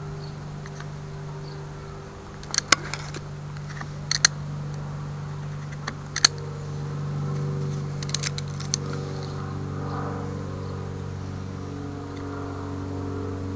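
Utility-knife blade cutting into a wooden walking stick: small clusters of sharp clicks and snaps as chips come away, stopping about two-thirds of the way through. A steady low buzzing hum runs underneath.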